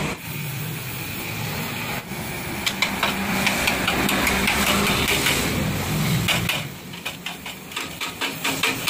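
Oxy-acetylene welding torch running steadily on a motorcycle's steel frame. About six and a half seconds in, light hammer taps on the metal start, about three a second.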